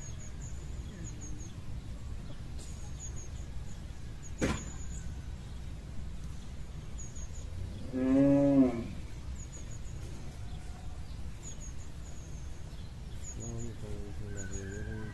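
A cow moos once, about halfway through: one short call that rises and falls in pitch. Small birds chirp faintly in the background, and there is a single sharp knock a few seconds before the moo.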